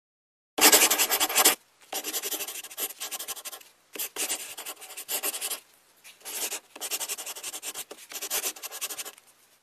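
Scratchy rubbing and rustling on cloth in four bursts, the first short and loudest, as a dog's paw and a person's hand scuffle on a bedspread.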